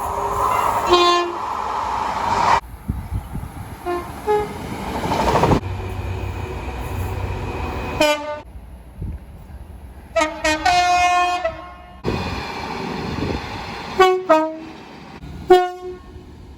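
A series of train horn blasts, some short toots and some longer, including a longer blast about ten seconds in, heard over the noise of passing trains.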